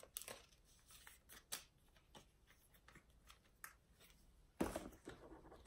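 Faint rustling and light clicks of a paper sticker sleeve being handled, with a louder rustle near the end.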